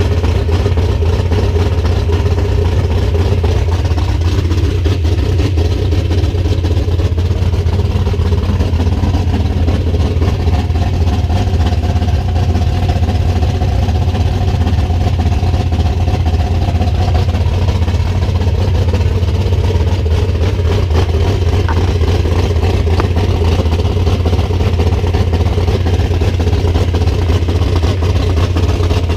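Mopar 340 small-block V8 in a 1973 Plymouth Duster running steadily, on its first run after the cylinder heads were resurfaced and reinstalled to cure coolant getting into the number 3 cylinder.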